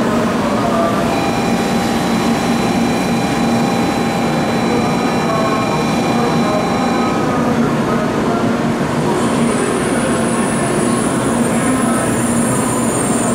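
N700-series Shinkansen train rolling slowly through the curve into the station: a steady rumble with a thin whine for the first several seconds. A high-pitched wheel squeal joins about nine seconds in.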